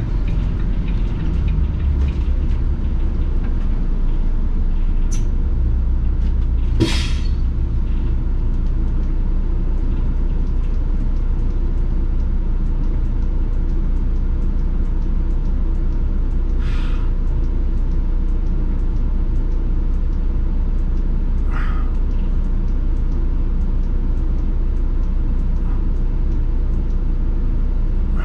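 A 2018 Volvo B7R city bus's 7-litre turbo diesel runs under way with a steady low rumble. There are four short hisses of air from the air brakes, the loudest with a click about seven seconds in.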